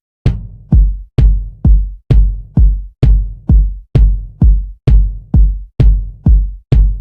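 Electronic music: a drum machine's deep kick drum hitting steadily on its own, about two hits a second, each a sharp attack with a falling low boom.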